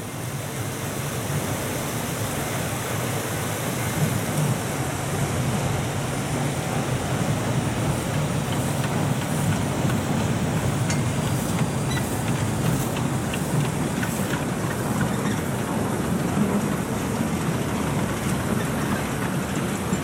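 Narrow-gauge forest-railway steam locomotive of 1928 hauling a short passenger train past at low speed: a steady rumbling run that grows louder over the first couple of seconds, with a scatter of light clicks around the middle as the engine goes by.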